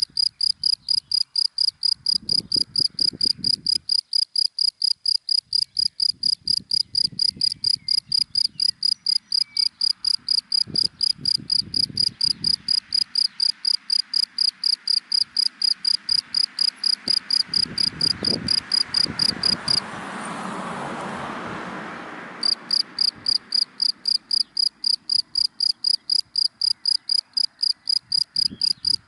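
A cricket chirping in a fast, steady rhythm of about three high chirps a second. It falls silent for a couple of seconds about twenty seconds in, as a passing car swells up and fades, then starts again.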